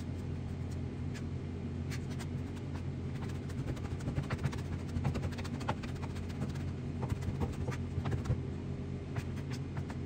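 Irregular light clicks and taps of kitchen utensils over a steady low hum, a little busier about halfway through.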